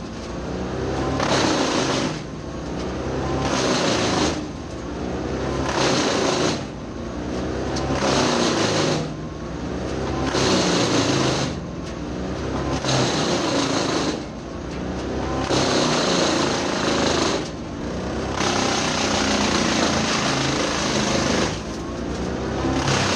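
Tractor PTO-driven Badger 8 PTOXL wood chipper chipping eucalyptus over the steady drone of the tractor engine. The chipping comes in surges about every two seconds, each easing briefly before the next piece is taken in.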